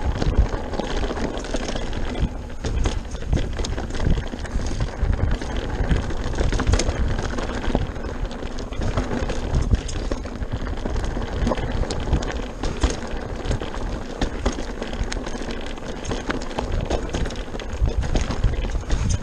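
Pivot Mach 429 Trail mountain bike riding down a rocky gravel trail: tyres crunching and rolling over loose stones, with frequent quick rattling knocks from the bike as it hits rocks.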